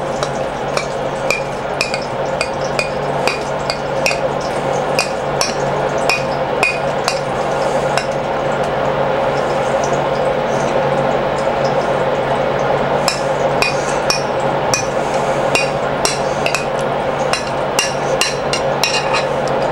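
Metal spoon clinking and scraping against the bowl while scooping sauce and spreading it on a toasted bun: repeated light clinks, some ringing briefly, over a steady hum.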